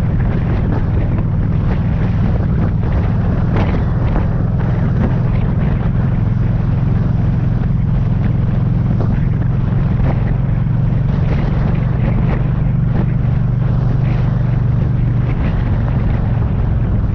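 Motorcycle engine running steadily at cruising speed, a constant low drone, with wind buffeting the microphone in irregular gusts.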